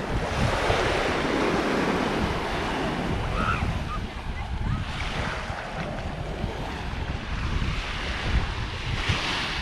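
Gulf surf washing onto the beach, swelling at the start and again near the end, with wind buffeting the microphone as a steady low rumble.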